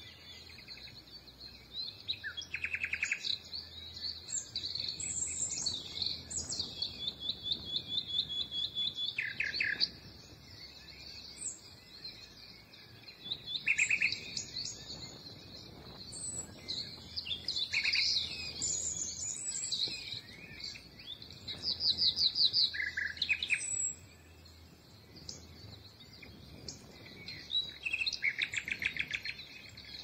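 Several songbirds singing together, with rapid trills and short chirps overlapping throughout.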